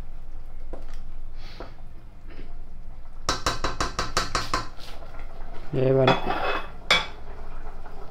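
Wooden spoon stirring a vegetable stew in a stainless steel pot with faint scrapes, then knocked quickly several times against the pot's rim about three seconds in, making the metal pot ring, with one more knock near the end.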